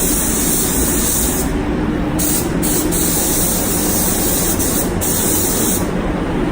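Spray gun applying primer: a hiss that starts and stops as the trigger is pulled and released, with short breaks about one and a half seconds in and near five seconds, and a stop shortly before the end. Under it, the spray booth's fans run with a steady drone.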